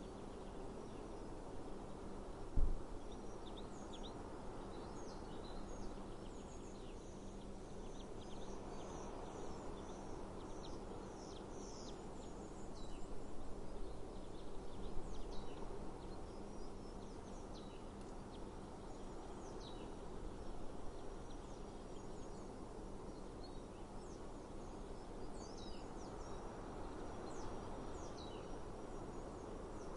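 Outdoor ambience: a steady background rush with many short, high bird chirps scattered throughout, busiest in two stretches. A single dull thump about two and a half seconds in.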